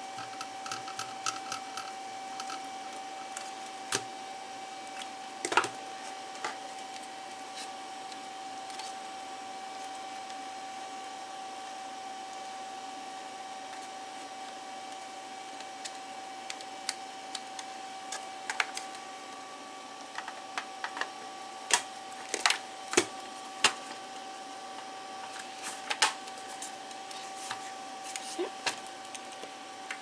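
Scattered clicks and light knocks of hands handling a satellite receiver's circuit board and plastic case while reassembling it, busiest in the second half. Under them runs a steady high tone.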